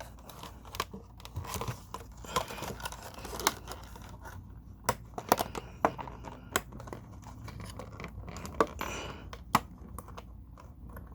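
Irregular sharp plastic clicks and scraping from hands working the USB receiver out of a plastic wireless mouse.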